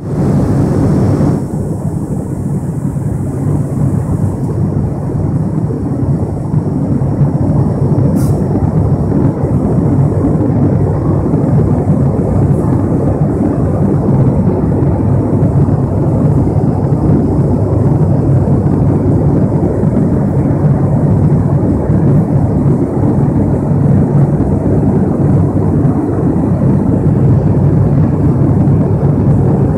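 Steady propeller and turboprop engine drone of an ATR 72-500 in cruise, heard inside the cabin beside the propeller. It is a dense low hum with a faint hiss above it, and a brighter hiss cuts off about a second and a half in.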